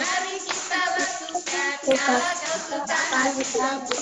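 Female and children's voices singing a children's song together, with a sharp hand clap or two.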